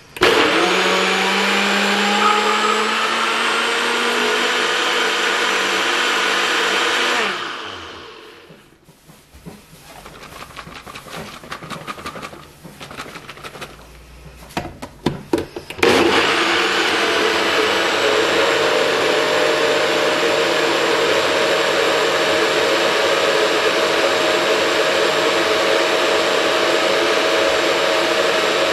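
NutriBullet blender motor blending fruit and water, with a whine that climbs slowly in pitch for about seven seconds before winding down. A stretch of knocks and clatter from the cup being handled follows. About halfway through the motor starts again and runs steadily to the end.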